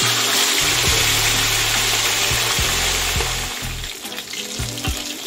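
A whole lapu-lapu (grouper) sizzling loudly in hot oil in a wok as it goes in to fry. The sizzle sets in at once, is strongest for the first few seconds, then eases a little.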